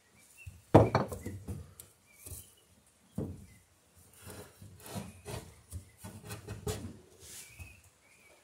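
Wood knocking and rubbing against wood as a wooden boat plank and its clamps are handled. One sharp knock comes about a second in and another about three seconds in, then lighter scattered knocks and scrapes.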